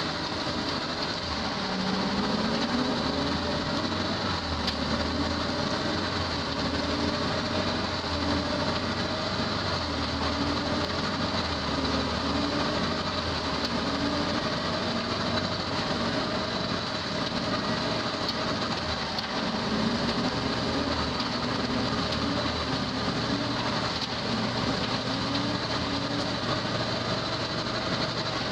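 A skid steer loader running a loader-mounted bale spreader, its beaters shredding a round bale and throwing the material out. Steady, loud machine noise with a thin whine held through it.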